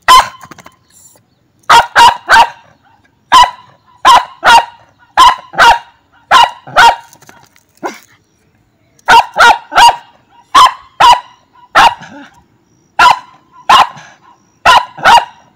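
Dog barking at a street cat: loud, sharp, short barks in quick runs of two or three, about twenty in all, with a couple of brief pauses.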